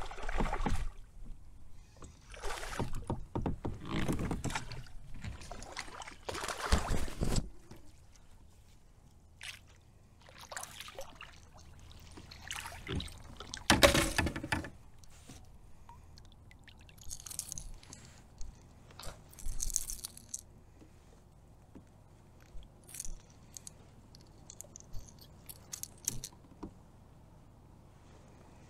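A hooked largemouth bass splashing at the surface while being fought from a kayak, with bursts of splashing in the first several seconds and the loudest splash about 14 seconds in. After that come quieter clicks, jingles and rustles as the fish is handled in a mesh landing net.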